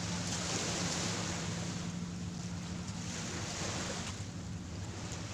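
Waves washing on a beach with wind buffeting the microphone, the surf rising and falling, over a low steady hum.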